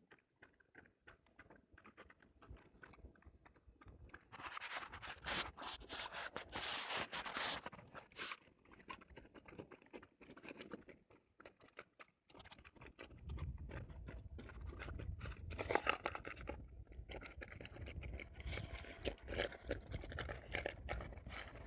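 Crunching and chewing, as of a dog gnawing something hard, with some scraping. It breaks off briefly about twelve seconds in and resumes over a low rumble.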